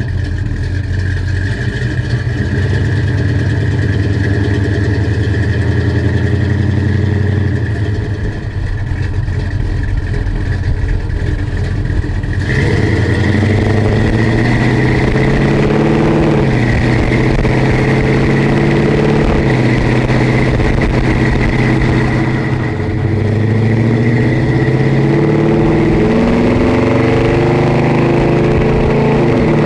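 454 cubic-inch big-block Chevrolet V8 in a 1966 Chevelle, running steadily at a low, even speed for about twelve seconds. Then it gets louder, and its pitch climbs and drops back several times as the car pulls away and shifts up through the gears.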